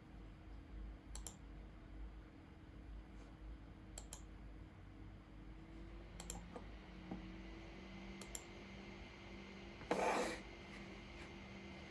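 Faint clicks from computer use at a desk, mostly in quick pairs every two to three seconds, with a brief louder rustle near the end, over a low steady hum.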